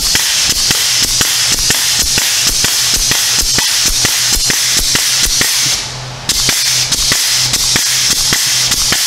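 Power grease gun pumping grease into a new ball joint's zerk fitting: a steady hiss with a fast run of sharp clicks, pausing briefly about two-thirds of the way through, then going on again. The ball joint's rubber boot is being filled until it just starts to swell.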